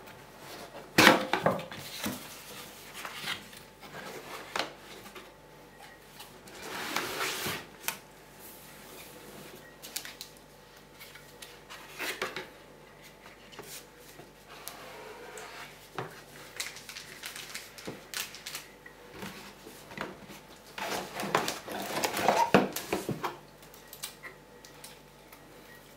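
Cardboard box and packaging being opened and handled: scattered rustling, scraping and knocks. A sharp knock comes about a second in, with longer bursts of rustling around seven seconds and again near the end.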